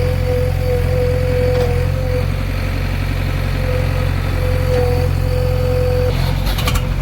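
Heavy diesel engine running steadily, with a steady whine on top. About six seconds in, a short clatter of knocks.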